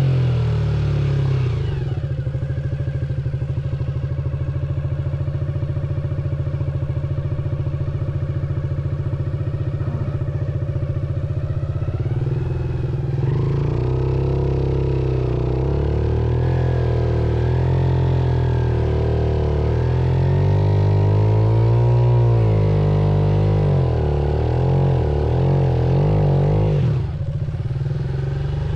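Off-road motorcycle engine running steadily at low revs, then revved up and down repeatedly from about halfway, easing off near the end.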